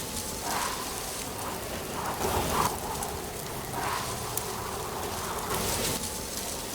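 Autumn wind gusting, with dry leaves rustling in repeated swells.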